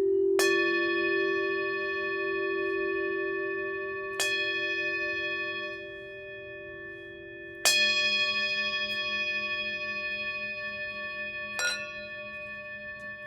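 Singing bowl struck four times, roughly every four seconds, each strike ringing on with many high overtones that slowly die away. Under the first strikes a lower, steady bowl tone fades out.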